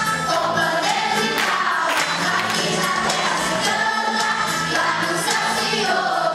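A gospel group singing together over a backing track with a steady beat.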